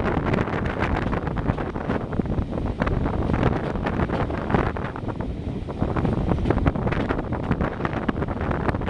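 Heavy wind buffeting the microphone over the low rumble of a diesel locomotive running.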